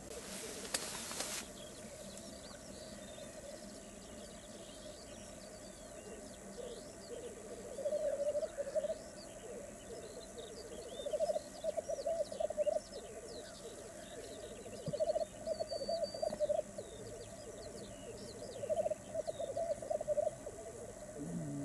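Male black grouse lekking: the continuous bubbling, cooing display song of several birds, swelling into louder phrases every few seconds, with short higher chirps above it. A short burst of noise comes near the start.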